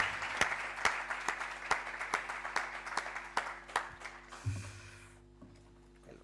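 Audience applauding, thinning to scattered individual claps and dying away about five seconds in.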